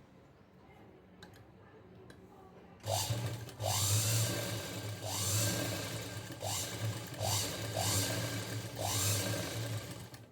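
Electric sewing machine motor driving the machine through its belt while stitching. It runs in several surges starting about three seconds in, each beginning with a rising whine. The motor has been freshly greased and its belt set not too tight, and it runs without much noise.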